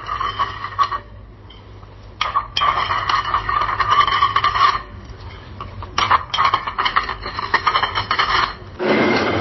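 Coffee maker brewing, sputtering and crackling in irregular spurts with two short lulls. Near the end it changes abruptly to a steadier hiss of another brewing sound.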